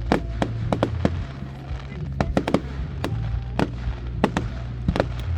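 Fireworks going off: a rapid, uneven string of sharp bangs and crackles over a steady low rumble.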